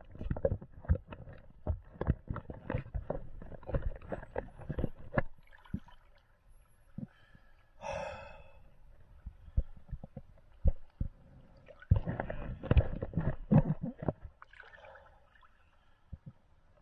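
Irregular knocks and clunks of diving gear and water, thinning out after about five seconds, with a short gurgling, bubbly burst about eight seconds in and another close run of knocks a few seconds later.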